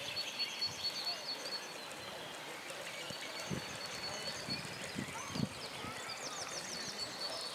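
Outdoor ambience with birds calling: a thin steady high tone, a short run of quick falling chirps about six seconds in, and a few soft low thumps in the middle.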